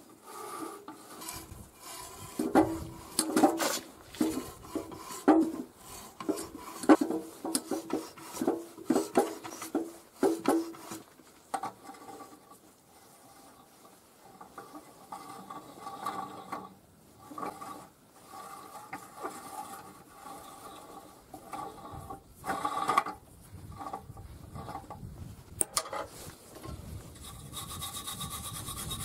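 Hand threading tool in a die stock being turned over a steel part held in a bench vise: rasping, squeaky metal-on-metal cutting strokes, loudest and most frequent in the first ten seconds, then quieter scraping with a few knocks.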